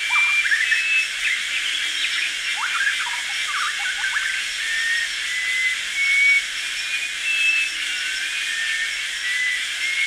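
Early-morning tropical rainforest ambience: a steady high insect hiss with birds calling over it. Short whistled notes repeat about once a second, and a quick run of rising and falling chirps comes a few seconds in.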